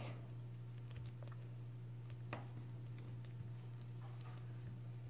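Faint sticky clicks and squishes of soft Airheads taffy being kneaded and pulled between the fingers, a few at a time, over a steady low hum.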